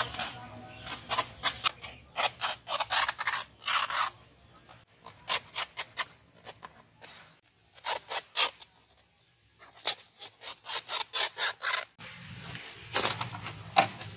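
Fresh banana leaves being rubbed and handled on a wooden table. Quick rustling, rasping strokes come in runs of several a second, with short pauses between runs.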